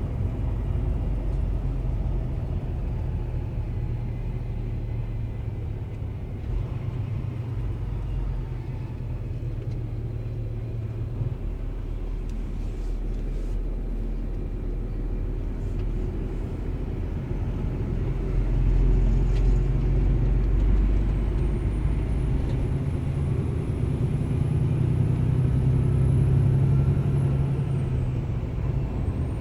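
Engine running with a turbocharger whistle: a high thin tone rises and holds over the engine's low rumble, drops off near the end, then starts rising again.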